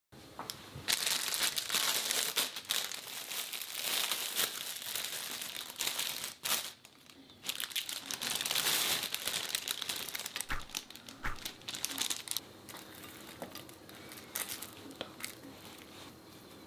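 Thin plastic film crinkling and rustling as it is handled, loud and dense for most of the stretch with a short lull partway through, then quieter with scattered crackles in the last few seconds.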